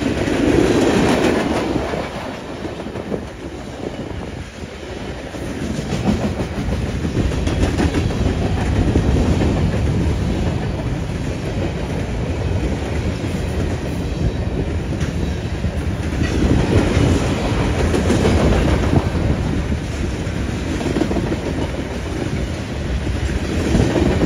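Freight train cars rolling steadily past on the near track: a manifest of tank cars and covered hoppers, with a continuous rumble and wheels clicking over the rail joints. The noise swells and eases a little as the cars go by.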